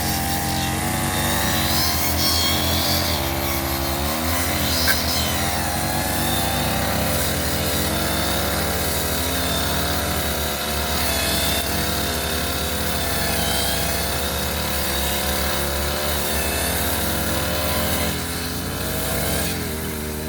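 Petrol brush cutter engine running continuously at high speed, its pitch dipping and recovering as the cutting head meets grass and undergrowth. A brief tick about five seconds in.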